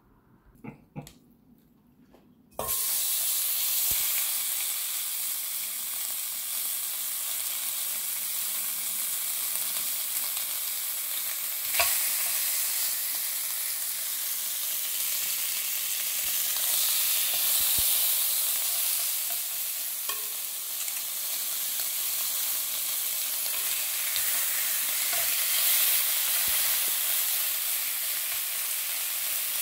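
Korean BBQ flanken-cut beef short ribs sizzling steadily on the nonstick grill plate of an Aroma electric grill. The sizzle starts abruptly about two and a half seconds in, after a few soft clicks, and a few sharp clicks stand out over it, the loudest about twelve seconds in.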